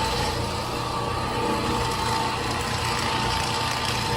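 Rotary floor machine running steadily, its pad scrubbing a wood floor: a constant motor hum with a steady whine.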